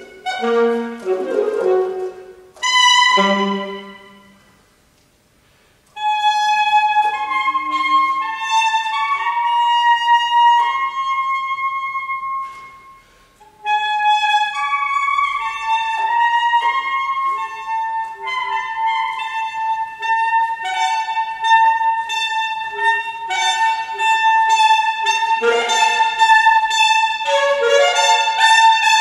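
Solo alto saxophone playing a contemporary concert piece: short phrases, then a rest of about two seconds, followed by long held high notes and quicker runs of notes near the end.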